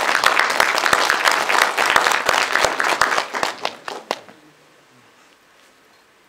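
Audience applauding, the clapping thinning out and stopping about four seconds in.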